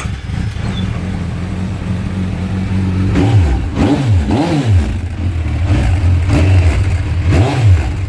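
Suzuki Bandit 1250's inline-four engine running through a Scorpion aftermarket end can with the baffle still in. It idles steadily for about three seconds, then is revved in several quick throttle blips. It is not that noisy.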